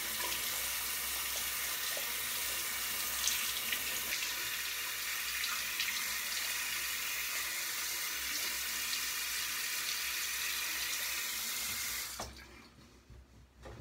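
Bathroom sink tap running steadily into the basin, shut off suddenly about twelve seconds in.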